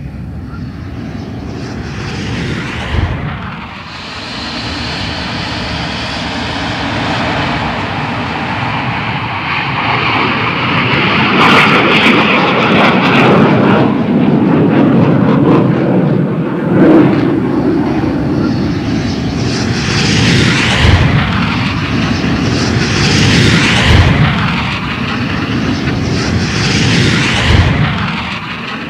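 Jet engines of English Electric Lightning fighters taking off and flying past: a broad jet noise that dips briefly about four seconds in, then builds and stays loud. A few short low thumps come through in the second half.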